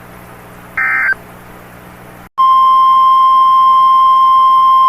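The last of three short burst-like warbles of SAME digital data tones from a weather-alert broadcast, about a second in, then after a brief gap a loud steady single-pitch NOAA Weather Radio warning alarm tone begins about two and a half seconds in, signalling that a new warning alert follows.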